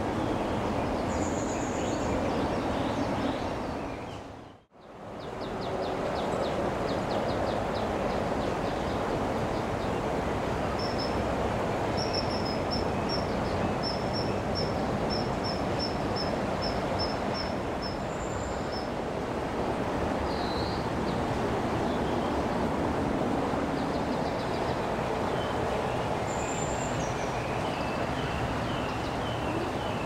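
Steady noise of heavy road traffic, with small birds calling high over it, including a run of quick repeated chirps partway through. The sound fades out and straight back in about five seconds in.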